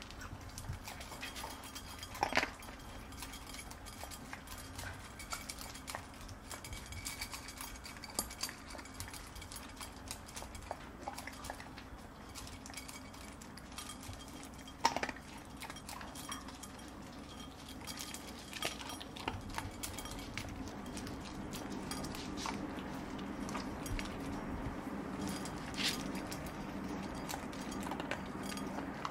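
Old English Sheepdog eating dry kibble from a slow-feeder bowl: a steady run of small crunches and clinks as kibble is nosed around the bowl, with three louder sharp knocks spread through it.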